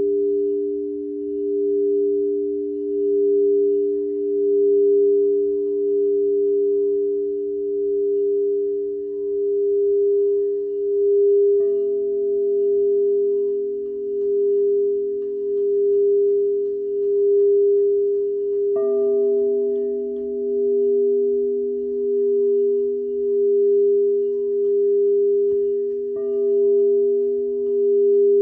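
Crystal singing bowls: one bowl's tone is held and sustained, its loudness pulsing slowly. Other bowls are struck three times, each strike bringing in a new, lower ringing note under it.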